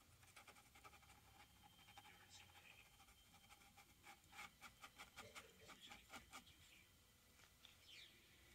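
Faint scratching of a paintbrush stroking across canvas. It picks up into a quick run of strokes, about four or five a second, around the middle.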